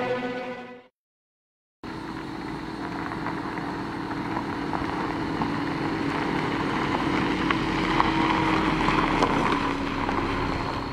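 Orchestral string music fades out, and after about a second of silence a Volkswagen sedan drives up a gravel lane: a steady engine hum with tyres crunching on gravel, swelling a little and then easing off near the end as the car slows.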